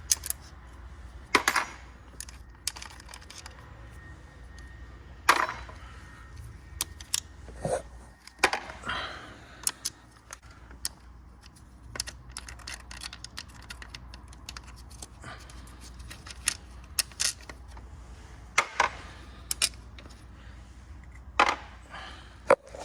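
Hand tools and small metal parts being handled: irregular sharp clicks and clinks with a few louder knocks spread throughout, over a faint steady low hum.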